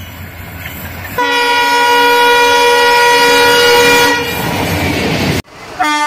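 An Indian Railways diesel locomotive approaches with a rising rumble, then sounds its horn in one long, steady blast of about three seconds. After a sudden cut, a WAG-5 electric locomotive's horn starts near the end, with heavy rain falling.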